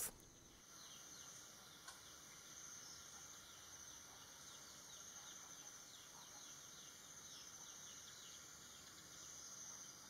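Near silence: faint garden ambience with a steady high-pitched insect drone and faint high chirps.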